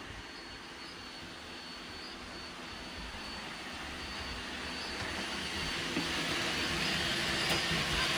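Robot vacuum cleaner running, a steady whirring with a thin high whine that grows gradually louder.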